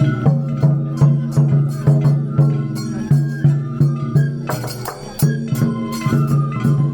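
Danjiri-bayashi festival float music: drums keep a steady beat of about two strokes a second under a melody from the float's musicians. The music eases briefly about five seconds in, then comes back in strongly.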